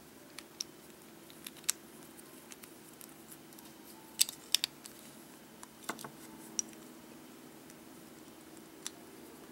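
Metal and plastic Beyblade parts clicking and tapping as they are handled and fitted together during assembly: a scattering of short, sharp clicks, the loudest two about four seconds in.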